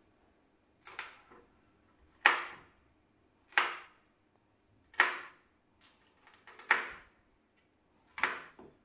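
Kitchen knife chopping green bell pepper on a plastic cutting board: about six separate cuts, each a sharp knock of the blade on the board, about one every second and a half.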